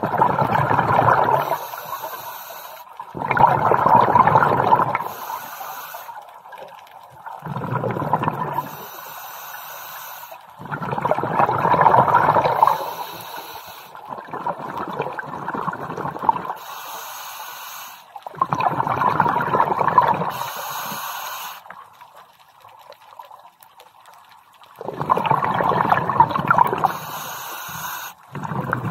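Scuba diver breathing through a regulator underwater: six bursts of exhaled bubbles a few seconds apart, with a faint hiss of inhalation between them.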